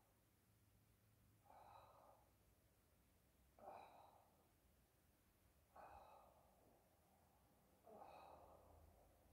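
Faint breathing: a man breathing out about every two seconds, four breaths in all, each starting sharply and tailing off.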